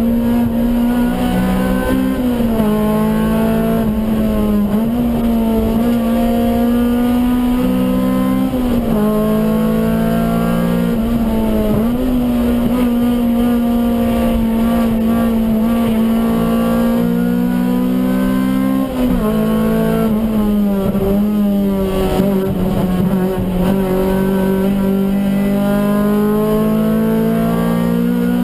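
A stock Honda B16A 1.6-litre DOHC VTEC four-cylinder in a Civic EG6, heard from inside the cabin at racing speed. The engine is held high in its rev range, its pitch dipping briefly and climbing again at each gear change, about half a dozen times.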